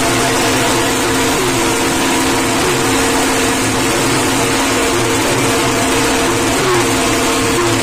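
A motor vehicle engine running steadily amid loud, dense noise.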